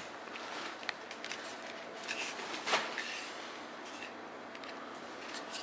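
Light handling noise from a Tikka T3X synthetic rifle stock: faint plastic rubbing and a few small clicks, with one louder scrape nearly three seconds in.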